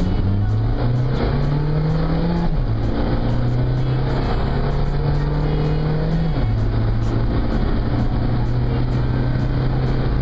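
Rally car engine running under load, its note rising and then stepping down twice with gear changes, with a pop song playing over it.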